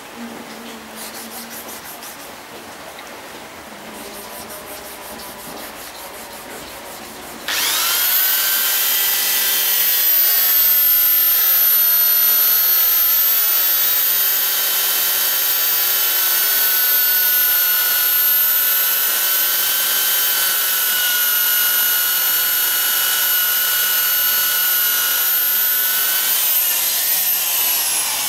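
Quiet rubbing for the first seven seconds or so, then an electric power tool switches on abruptly and runs with a steady high whine while polishing a motorcycle engine; its pitch sags and wavers briefly near the end.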